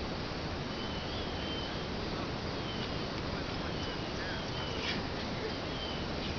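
Steady outdoor background hiss with faint high chirps about once a second and a single faint click near the end.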